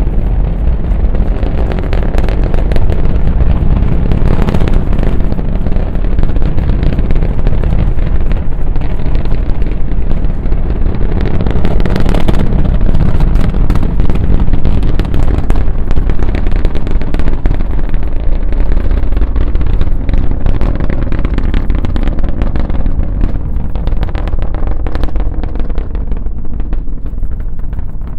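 SpaceX Falcon Heavy rocket at liftoff and climb-out, its 27 Merlin engines running as a loud, continuous low rumble shot through with rapid crackling. The upper range drops off near the end.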